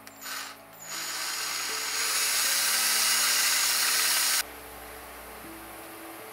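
Cordless drill boring into a room-divider fitting to widen a hole for a replacement part: a brief blip, then about three seconds of steady drilling that gets louder partway through and stops abruptly.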